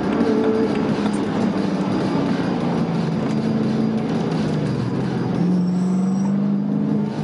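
BMW E92 M3's V8 engine heard from inside the cabin, driving at speed on track over a haze of tyre and road noise. The engine note climbs steadily through the last couple of seconds, then briefly dips near the end.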